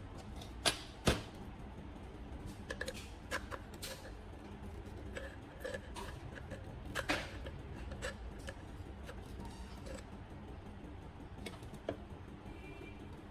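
Irregular sharp clicks and light knocks, two loud ones about a second in and another near the middle, over a steady low hum.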